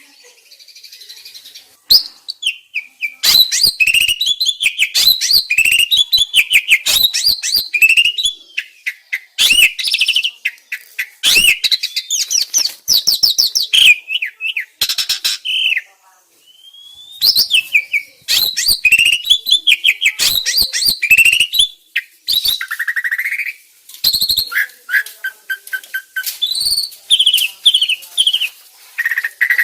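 Starling song: a fast, varied run of chirps, whistled glides and sharp clicking notes in dense phrases broken by short pauses. It is a masteran recording, a tutor song played to kept starlings to get them singing.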